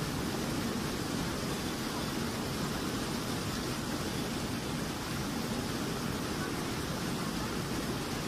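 Turbulent water rushing steadily through a dirt channel, a constant even roar.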